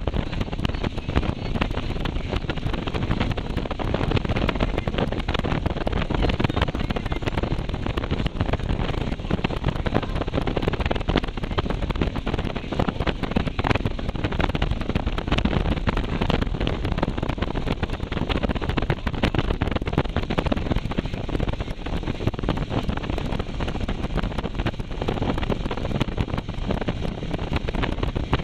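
Steady wind rushing and buffeting over the microphone of a moving motorcycle, with engine and road noise beneath it.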